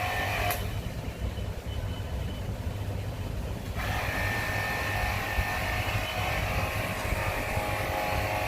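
Steady mechanical drone: a low throbbing hum under several high steady whining tones. The high tones cut out about half a second in and come back about four seconds in.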